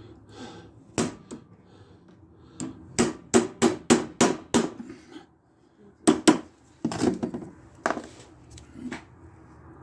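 Hammer blows on a part of a lawn mower's front axle: one strike about a second in, a quick run of about seven taps a few seconds in, then a few single blows.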